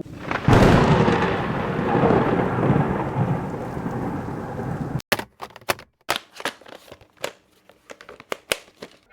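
Thunder sound effect: a crack about half a second in that rolls and slowly fades over several seconds. It cuts off suddenly, giving way to scattered sharp clicks and taps with near silence between them.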